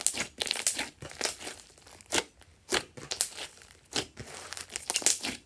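A large mass of purple glossy slime being squeezed, pressed and pulled by hand, giving irregular bursts of sticky clicking and popping every half second or so.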